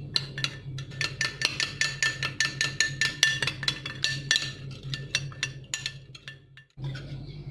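A utensil clinking rapidly against a bowl while seasoning is stirred into olive oil, several taps a second, each with a short ringing note. The clinking stops near the end.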